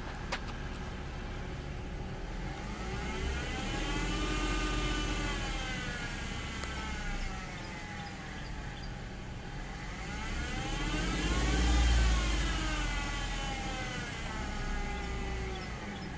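Jeep Wrangler JK engine revved up and back down slowly twice, with a high-pitched whine that rises and falls with engine speed: the noise of a bad idler pulley on the accessory belt.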